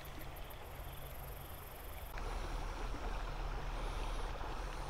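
Faint outdoor background noise at a creek bank: a steady low rush with no distinct events, stepping up a little in level about two seconds in.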